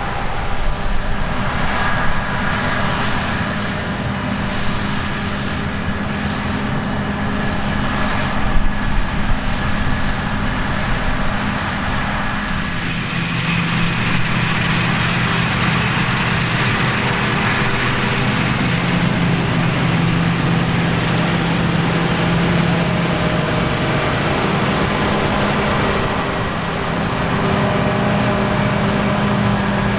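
Heavy diesel farm machinery running steadily under load, with the engine note shifting about midway.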